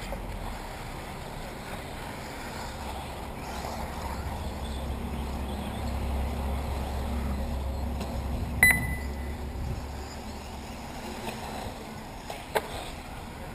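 Wind rumbling on the microphone over the running of 1/8-scale electric RC off-road buggies on a dirt track. A short, high electronic beep comes about two-thirds of the way through, and a sharp click comes near the end.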